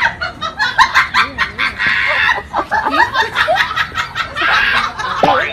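Laughter-like vocal sounds with many quick rising and falling squeaks, loud throughout, cutting off suddenly at the end.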